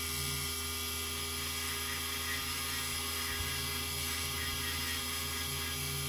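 Small bench lathe running at a steady speed, spinning a brass model locomotive wheel on its axle for cleaning, with an even motor hum and whine.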